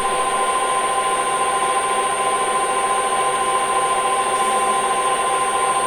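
Metal lathe running at a steady speed, its motor and gearing giving an even, multi-pitched whine with a thin high tone above.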